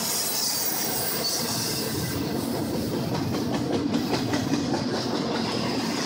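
Intermodal freight train cars rolling past on the rails: a steady noise of wheels on track, with a cluster of sharper clacks over rail joints about four seconds in.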